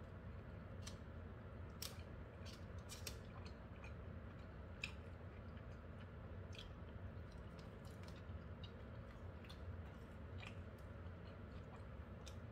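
Close-up chewing of thick-cut french fries: irregular, crisp little mouth clicks over a steady low hum.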